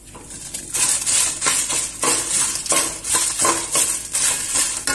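Perforated steel slotted spoon scraping and clinking against a steel pan while dried red chillies and dal fry in coconut oil. The chillies are being roasted until they brown. The stirring starts about a second in and goes on in quick repeated strokes.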